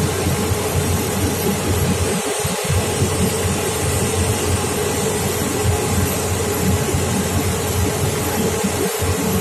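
Boeing 787 airliner's jet engines running at taxi power as the aircraft rolls past, a steady hum over a fluctuating low rumble that briefly drops out about two seconds in.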